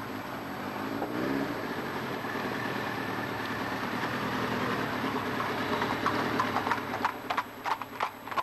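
A motorcycle engine approaches and passes close by, its pitch rising as it pulls away about a second in and growing louder up to about six seconds. Near the end, a horse's hooves clip-clop on the road as it walks past.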